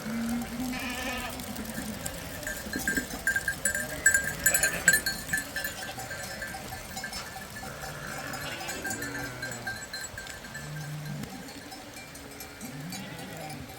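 A flock of sheep bleating on and off, with livestock bells clinking; the clinking is loudest about four to five seconds in.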